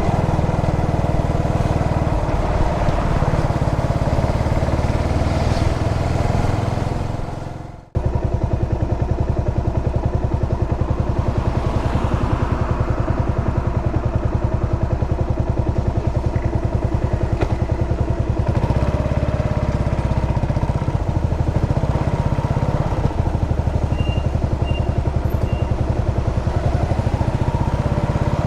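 Yamaha SR400's air-cooled single-cylinder engine running with an even beat of firing strokes. The sound drops out abruptly about eight seconds in, then the engine runs on steadily. Three short high beeps come near the end.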